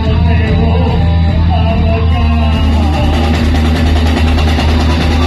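Rock band playing loud live through a club PA: electric guitars over a heavy, steady bass and drums.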